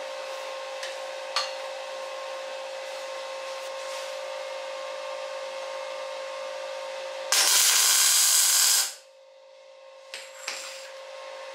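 Arc welder tack-welding a steel frame tube: about a second and a half of loud crackling hiss starting a little past halfway, cutting off sharply. Under it a steady hum from a powered-air respirator blower, with a couple of light clicks after the weld.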